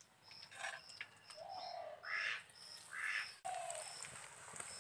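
Birds calling: one bird repeats a short high chirp about twice a second, with a few lower calls in between.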